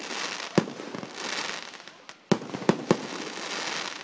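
Aerial fireworks bursting: about five sharp bangs, the loudest about half a second in and just past two seconds, over a steady hissing crackle of burning stars. A short lull comes just before the second loud bang.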